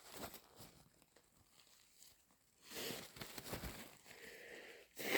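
A person with a cold making short, breathy sniffing and breathing sounds through a stuffy nose, loudest in the second half, while trying to bring on a sneeze.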